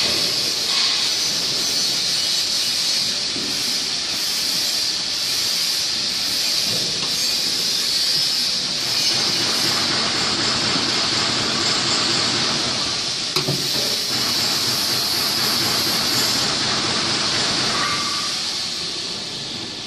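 Steady high hiss throughout, with a single short click about thirteen seconds in.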